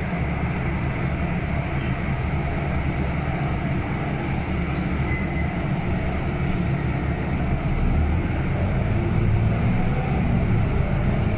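The five-cylinder natural-gas engine of a Scania N280UB CNG city bus, heard from inside the passenger cabin: a steady low rumble as the bus draws up at and stands beside a stop, growing a little louder about eight seconds in.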